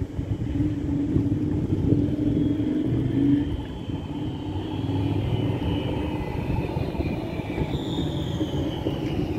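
City tram running past with a steady rumble of motors and wheels on the rails. In the second half, high whining tones glide downward.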